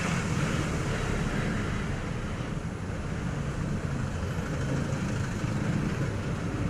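Steady low rumble of vehicle noise with an even hiss above it, no distinct knocks or changes.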